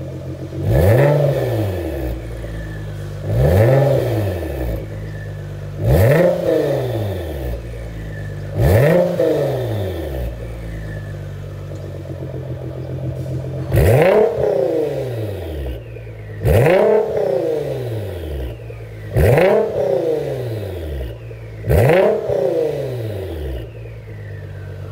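Nissan GT-R R35's twin-turbo V6 running through a catless titanium Fi Exhaust with a valvetronic muffler, idling and blipped sharply eight times. Each rev climbs fast and falls back to idle within about a second, with a longer stretch of plain idle near the middle.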